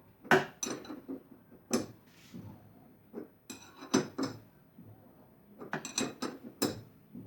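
An 18 mm spanner clinking on the shock absorber's top nut as it is fitted and turned clockwise, a string of short, sharp metal clinks in small groups. The nut is being tightened to take up a loose shock absorber piston rod, the cause of a front suspension rattle.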